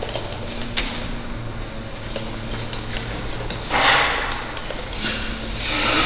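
A plywood desk carcass being handled and moved: light wooden knocks and scrapes over a low steady hum, with two louder rushing noises about four and six seconds in.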